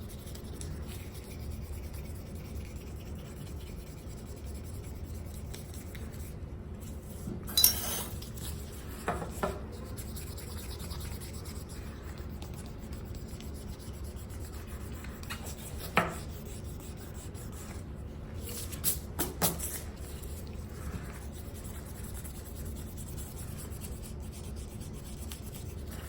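Fine 1200-grit sandpaper rubbed with the grain over a Stanley No. 3 hand plane's painted finish: a soft, steady rubbing, broken by a few sharp clicks as the plane or paper is knocked or shifted.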